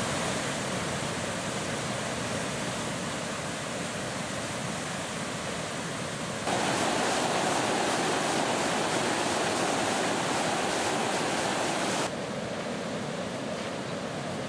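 Water rushing steadily over a river weir in high flow, with churning white water below the sill. It gets louder about six and a half seconds in and drops back about twelve seconds in.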